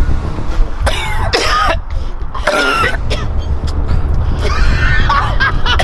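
Men coughing and clearing their throats in repeated short bursts while trying to pass a condom from the nose out through the mouth, their airways burning from Pepper X hot sauce. Wind rumbles steadily on the microphone.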